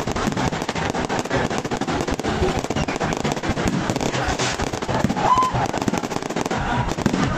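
Fireworks going off in a dense, continuous run of bangs and crackles from many bursts at once.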